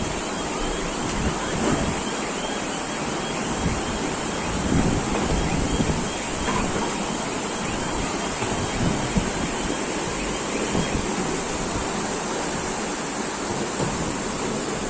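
Steady rush of floodwater and wind, with gusts buffeting the microphone. A faint, high, regular chirping runs underneath and stops about three quarters of the way through.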